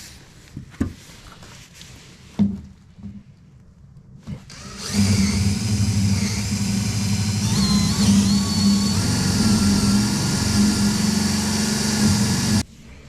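A few light knocks, then a motor starts up and runs steadily for about eight seconds, its pitch rising briefly partway through, before it cuts off abruptly.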